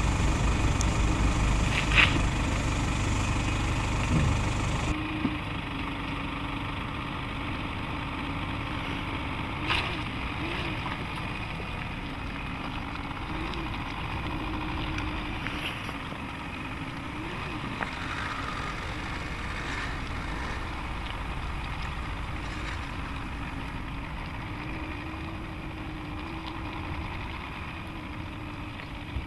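Nissan Navara NP300's 2.3-litre four-cylinder turbodiesel running at low revs, near idle. It is loud and close for about five seconds, then quieter and more distant as the pickup crawls slowly over sand humps.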